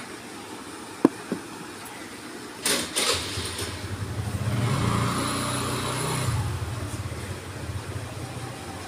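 Two sharp knocks about a second in, then a motor engine hum that swells over a few seconds and fades again.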